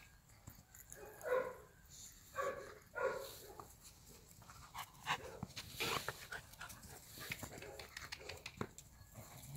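Golden retriever puppies making play noises while tugging a rope toy: a few short whining vocal sounds in the first three seconds, then scuffling and clicking noise from the tug.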